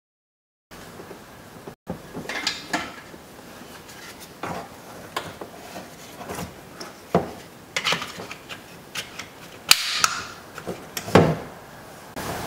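Fast-forwarded handling of plastic car door-panel trim: scattered sharp clicks, knocks and rattles as the door-pull trim and its screws are fitted.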